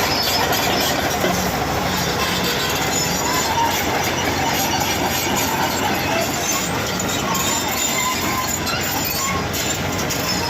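Hitachi excavator fitted with a hydraulic breaker travelling on its steel crawler tracks: a steady clattering noise of track and engine, with short squeals coming and going.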